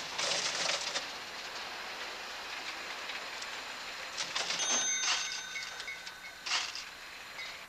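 Old mechanical cash register being rung up: a clatter of keys and works, then its bell rings for over a second as the cash drawer springs open, with another sharp clack about six and a half seconds in.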